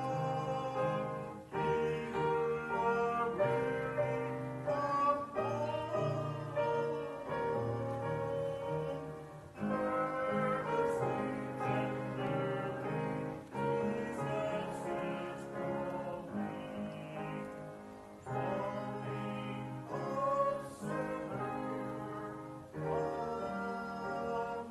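A slow hymn sung by a solo voice over instrumental accompaniment, in long held phrases with short breaks between them.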